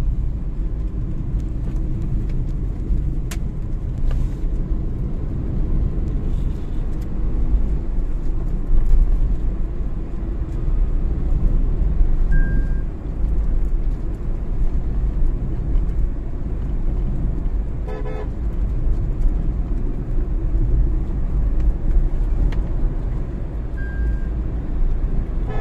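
Steady low rumble of engine and road noise inside the cabin of a moving Tata Altroz, driven by its 1.2-litre three-cylinder petrol engine. A short car horn toot sounds about two-thirds of the way through.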